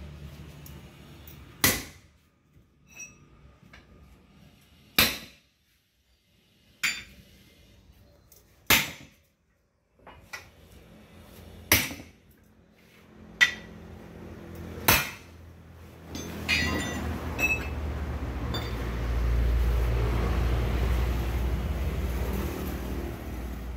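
Hammer blows on a truck wheel rim while the lock ring is knocked off by hand: about seven sharp metallic strikes, one to three seconds apart. A louder low rumble follows and fills the last six seconds or so.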